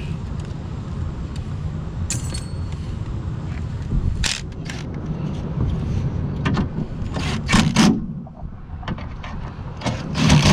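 Hands and tools working on a car door: scattered clicks, knocks and clatter of metal and plastic parts, with the loudest knocks a few seconds in and near the end, over a steady low rumble.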